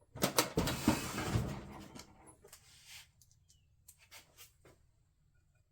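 Metal parts and screws being handled while a cover is put back on an electric pump motor: a burst of clattering and rustling for the first couple of seconds, then a few light clicks.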